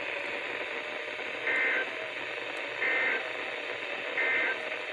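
NOAA Weather Radio receiver hissing, with three short bursts of two-tone SAME data signal about a second and a half apart: the end-of-message code that closes the severe thunderstorm warning broadcast.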